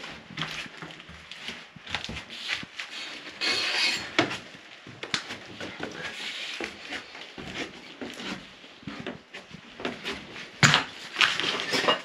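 Footsteps, scuffs and creaks of people going down a staircase and through an abandoned house, with irregular knocks and a sharper knock near the end.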